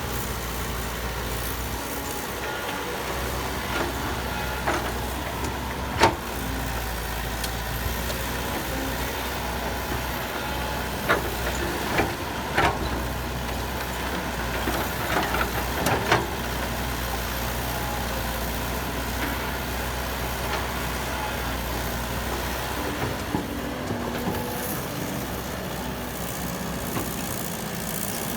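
Heavy construction machinery with a diesel engine running steadily, a low drone, with occasional sharp knocks and clanks, a few seconds apart.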